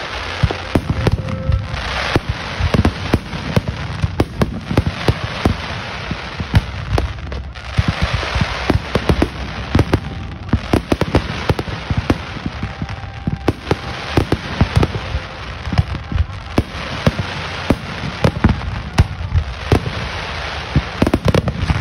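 Fireworks display firing a rapid, continuous barrage of bangs and pops from many shells at once, with stretches of crackling hiss.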